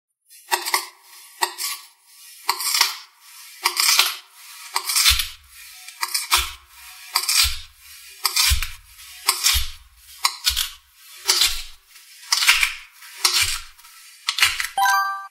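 A chef's knife slicing through kinetic sand, about twenty gritty, crunching cuts in a row, many of them ending in a dull thud as the blade meets the surface beneath. A short chime sounds near the end.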